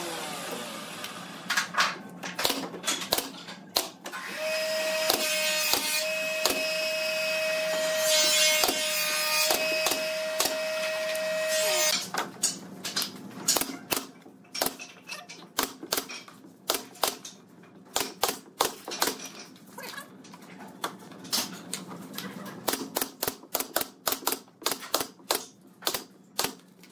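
Pneumatic brad nailer firing nails into thin pine strips, a run of sharp clacks that come quickly one after another in the second half. For several seconds in the first half a steady machine whine sounds under the shots.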